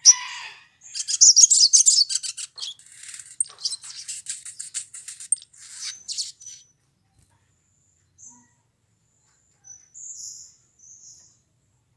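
Male olive-backed sunbird singing a rapid, high-pitched twittering song for about five seconds, followed by a few short separate calls near the end.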